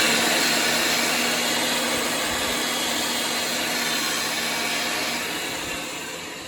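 Electric pipe threading machine running on its foot switch, spinning a 2-inch steel pipe while the cut end is reamed to remove the burr. A steady motor hum that dies away near the end.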